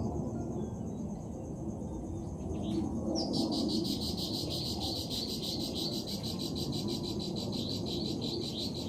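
An insect trilling continuously in a fast, even pulse, starting about a third of the way in, over a steady low background hiss.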